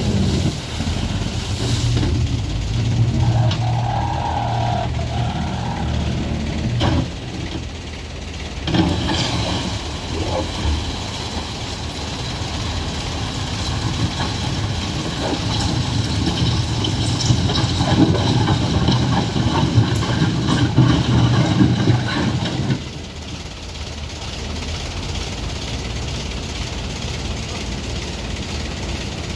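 Vehicle engines running on the road, a steady low rumble that swells and fades, then drops off abruptly about 23 seconds in to a quieter rumble.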